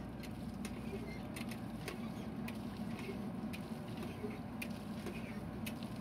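JCB 3DX backhoe loader's four-cylinder diesel engine running steadily under hydraulic load while the machine digs and loads soil. Irregular sharp clicks and ticks come from scattered points throughout.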